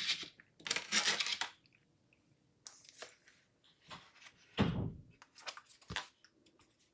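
Hands working on the open laptop: a scraping rustle, then scattered small plastic clicks and one duller thump about four and a half seconds in, as the battery is refitted and the parts are put back together.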